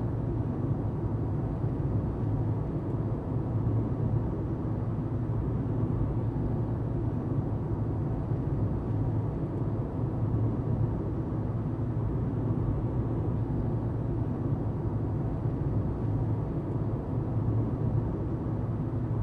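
Steady low rumble of a car driving along: road and engine noise heard from the moving vehicle.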